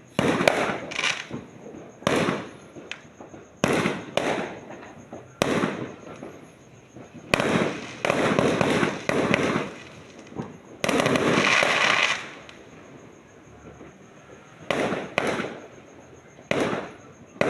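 Fireworks display going off in quick succession: a sudden bang every second or two, each trailing away quickly, with a longer run of dense crackling about eleven seconds in.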